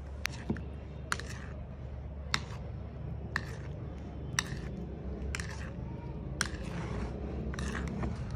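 A spoon clinking and scraping against a bowl about once a second as chopped bananas are mixed with lemon juice, over a steady low hum.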